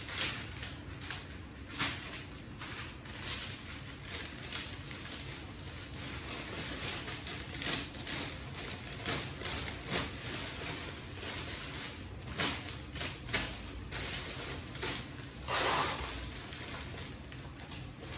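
Black flower-wrapping paper rustling and crinkling in irregular bursts as the sheets are handled and folded, with one longer, louder crackle near the end.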